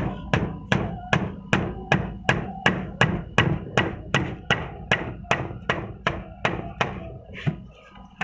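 Hammer driving nails into a wooden frame: a steady run of sharp blows, about two or three a second, with a short gap near the end.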